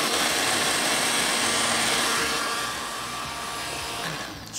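Countertop blender motor running at speed, puréeing a watery cooked tomato and dry-mango-powder chutney mixture. It is a steady whirring that eases slightly about halfway through and cuts off just before the end.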